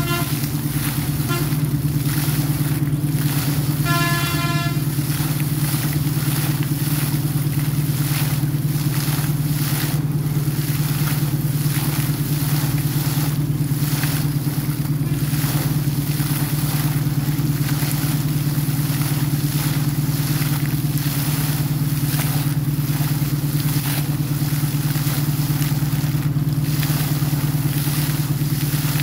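Borewell air compressor running with a steady low drone while water and air blast out of a PVC casing pipe and splash down in a constant hiss. A short pitched honk sounds about four seconds in.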